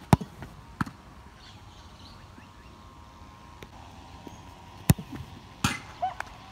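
Football struck hard by a kicking foot, a sharp thump just after the start, with a softer thud less than a second later. A second hard kick about five seconds in is followed shortly by a short noisy slap.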